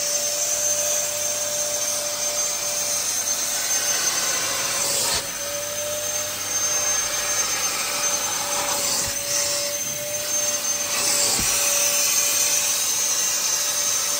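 Carpet-extraction wet vacuum running with a steady whine as its wide nozzle is drawn over damp car floor carpet. The suction note dips briefly about five seconds in.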